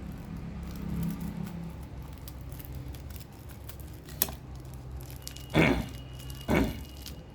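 Hands handling drill-bit packaging: a sharp click about four seconds in, then two louder rattling, rustling bursts, over a steady low hum.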